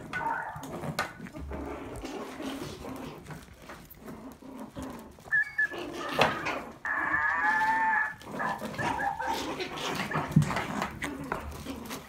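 Maltese puppies scuffling in play, with a short high yip about five seconds in and a drawn-out whine of about a second a little later.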